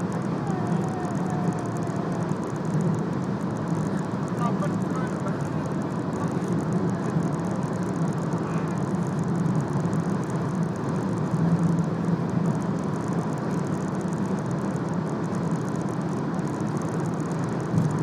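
Steady road and wind noise inside a car cabin cruising at high Autobahn speed, around 180 km/h, with a constant low drone.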